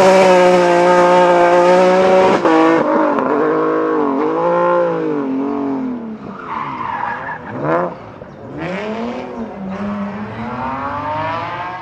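BMW 130i rally car with an M3 engine, held at high revs, then revving up and down over and over as the driver lifts, brakes and shifts. Bursts of tyre and gravel noise come in the second half.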